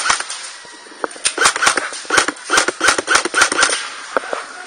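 Airsoft gun firing rapid strings of shots, about five or six a second, each crack with a brief mechanical whirr. One string stops just after the start, and a second string runs for about two and a half seconds, followed by a few single shots.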